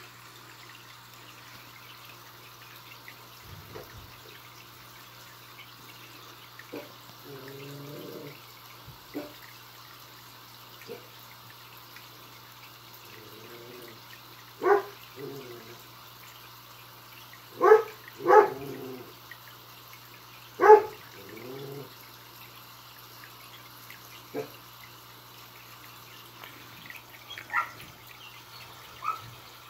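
Short, sharp animal calls, four loud ones close together in the middle and a few fainter ones later, over a steady low hum.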